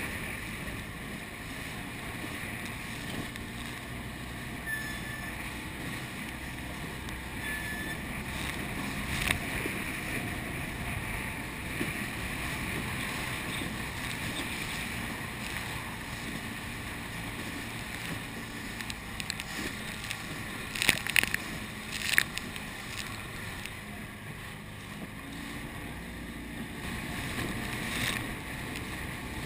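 Steady wind on the microphone and water slapping around an inflatable boat on choppy sea. A few sharp slaps stand out, the loudest two close together about two-thirds of the way through.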